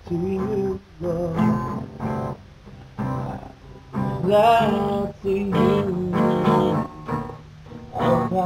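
Acoustic guitar strumming chords. The recording breaks up into short choppy pieces with sudden drop-outs, because the computer recording it could not keep up.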